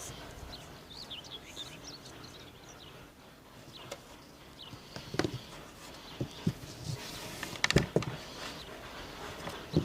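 Small birds chirping in short high notes, mostly in the first couple of seconds. From about halfway through come scattered sharp knocks and clacks of wood being handled, the loudest a close pair about eight seconds in.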